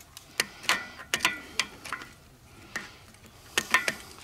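Sharp, irregular clicks and snaps, about ten over a few seconds, some in quick clusters, while a small fire of split kindling on cardboard is being lit.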